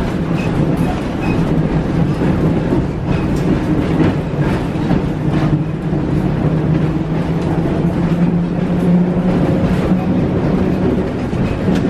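1904 Brill streetcar heard from inside the car while running along the track: a steady low hum and rumble from the running gear, with the body rattling and scattered clicks of the wheels over rail joints.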